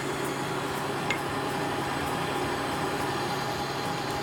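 Electric stand mixer running steadily, its motor giving a constant hum as it beats butter, sugar and egg for tart dough.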